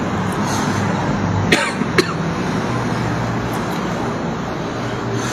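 A man coughing twice, short and sharp, about a second and a half and two seconds in, over a steady background hiss.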